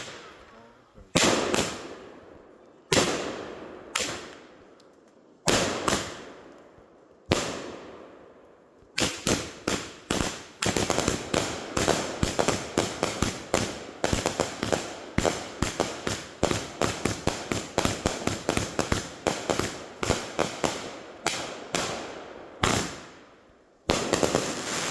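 Consumer aerial firework cake firing: single loud bangs every second or two at first, each with a trailing echo, then from about nine seconds in a rapid barrage of many cracking reports a second that stops near the end.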